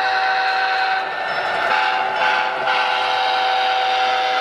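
A model train's sound-decoder horn sounding a held, multi-note chord, broken off briefly about a second in and then held again.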